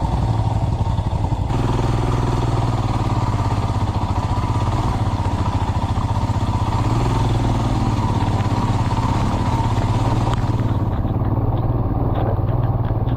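Royal Enfield Himalayan's single-cylinder engine running steadily at low revs on rough off-road ground, with short rattling clicks near the end.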